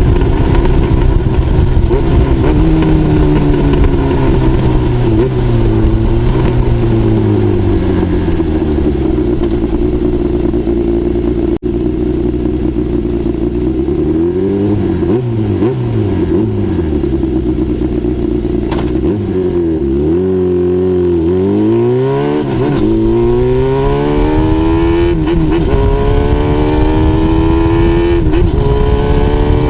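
Honda CBX550F's air-cooled inline-four being ridden through a homemade exhaust silencer. The revs fall away and hold steady, then rise and drop back repeatedly with gear changes, and climb through the gears near the end.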